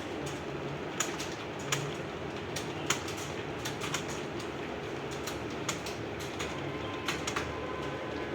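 A bird cooing low and repeatedly over a steady background noise, with a few sharp clicks scattered about once a second.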